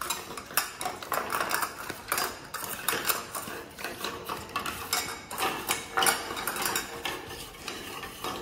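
Two puppies eating from stainless steel bowls on a wire crate floor: irregular clinks and rattles of the metal bowls against the wire, several a second.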